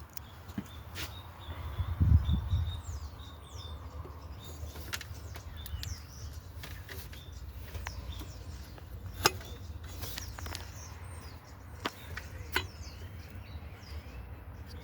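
Small birds chirping in the background, with scattered sharp clicks and a low thump about two seconds in.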